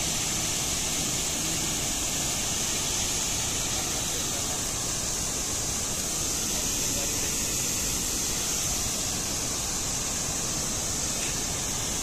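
Steady rushing of a large waterfall carrying a heavy flow, an unbroken roar with a high hiss over it.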